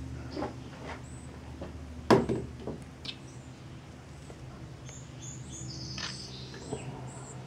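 Wild birds chirping, with short high calls scattered throughout and a run of calls in the second half, over a steady low hum. Several sharp knocks break in; the loudest comes about two seconds in.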